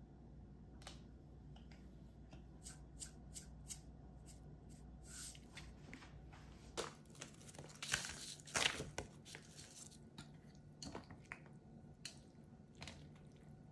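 Light scattered clicks, then about halfway through a few bursts of dry crackling and rustling as dried laver (gim) sheets are handled on a wooden cutting board.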